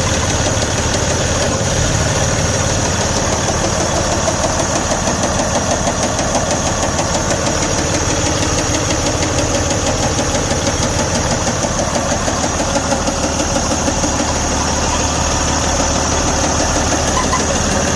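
Detroit DD15 diesel engine running at a steady idle with a loud, rhythmic knocking from a connecting rod. With oil pressure reading good, the knock is the sign of a damaged rod bearing.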